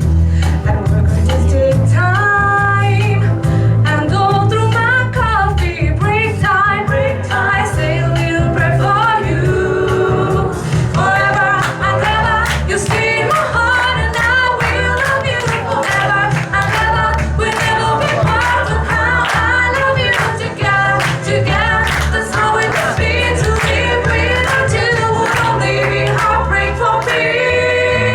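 Recorded song with singing over a stepping bass line. About ten seconds in, a steady beat of sharp percussion hits joins it.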